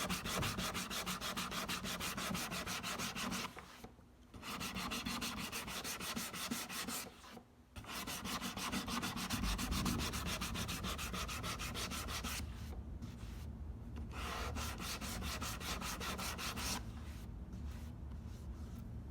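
Hand sanding of wood with sandpaper on a sanding block: rapid back-and-forth strokes, rolled over a faceted curved edge to smooth the facets into an even roundover. The strokes stop briefly twice and get softer toward the end.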